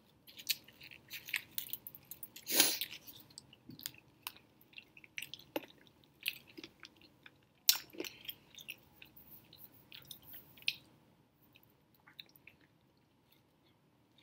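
Close-up chewing of a raisin bagel sandwich with cream cheese and beef sausage: a run of wet, clicking mouth sounds. There is a louder burst about two and a half seconds in and a sharp click near eight seconds, and it goes much quieter over the last few seconds.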